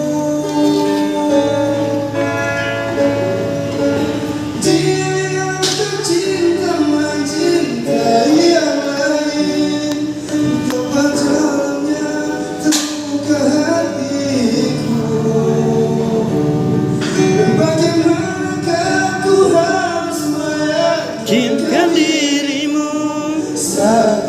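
A man singing a song to instrumental accompaniment, holding long notes, with a wavering vibrato on a held note near the end.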